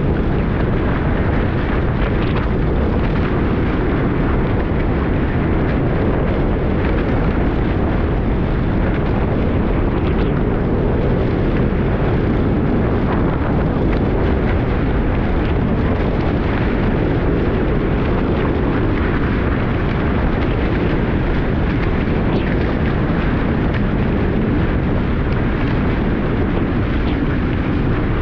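Strong wind buffeting an action camera's microphone on a Hobie 16 catamaran under sail: a loud, steady rumbling rush.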